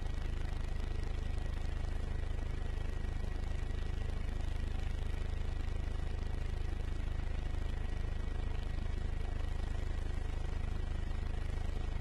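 Helicopter noise heard from aboard the aircraft: a steady, rapid low beating of the rotor with a thin steady high whine above it, unchanging throughout.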